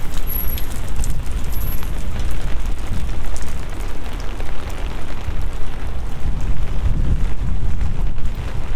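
Steady rain, with a loud low rumble underneath and scattered small ticks of drops.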